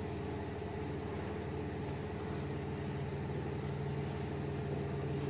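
Steady low background hum with several fixed pitches, and a few faint, soft strokes of a marker writing on a whiteboard.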